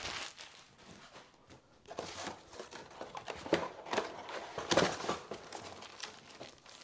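Cardboard packing inserts rustling and scraping as they are shifted and pulled about inside a corrugated shipping box, in irregular bursts, with plastic wrap crinkling at the start.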